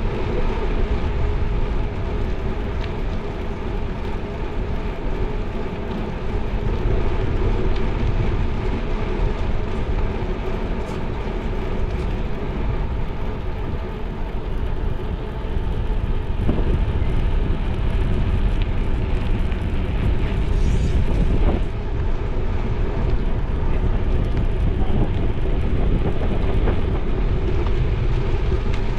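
Steady rolling rumble and wind noise of a bicycle riding along a paved bike path, with a couple of light knocks midway.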